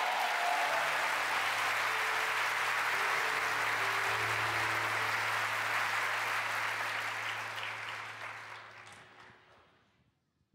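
Congregation applauding, with a low steady tone underneath. The applause dies away over the last two seconds.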